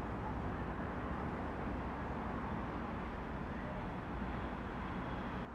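Steady outdoor background noise with a low rumble, cutting off suddenly near the end.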